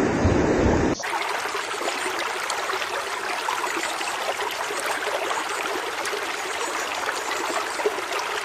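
Low wind-like rumble for about the first second, then water bubbling up through holes in riverbank sand: a steady fizzing trickle dotted with small pops and gurgles.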